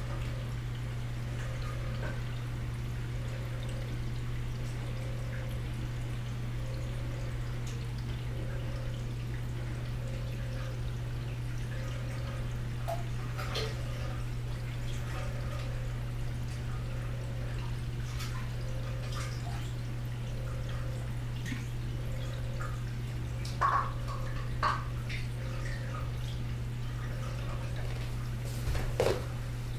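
Reef aquarium pumps humming steadily, with water trickling and dripping and a soft pulse repeating about every second and a half. A few light knocks come in the last third.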